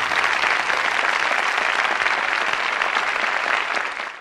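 Steady applause of many clapping hands that cuts off abruptly near the end.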